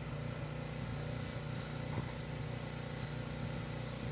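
Car engine idling steadily, heard from inside the cabin, with a single short knock about two seconds in.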